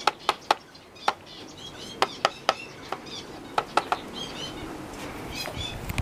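The hard beak of a costume head clacks shut as its swing-open jaw is worked by hand, giving sharp clicks in quick groups of two or three. Small birds chirp in the background.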